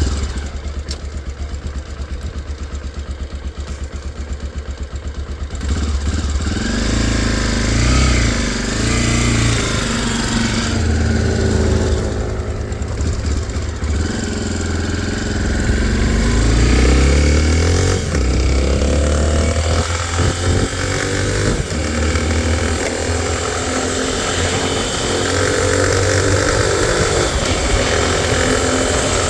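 Honda XR250 Tornado motorcycle's single-cylinder four-stroke engine, idling with an even beat for the first five seconds or so, then revved up and down repeatedly, its pitch rising and falling.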